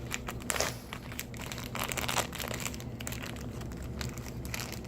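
Green glitter slime being squished and worked in the hands, a run of irregular small crackling pops and squelches.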